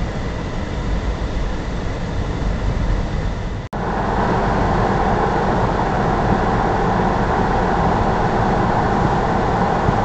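Car road noise heard from inside the car: steady engine and tyre rumble. About four seconds in it drops out for an instant at a cut, then comes back louder and brighter as the car cruises on a dual carriageway.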